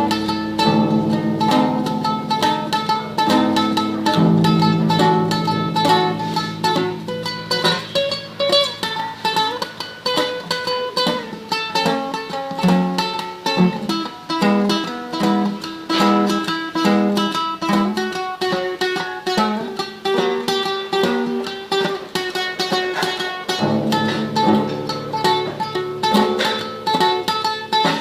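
Classical guitar playing a tremolo passage: rapid, evenly repeated treble notes over a plucked bass line.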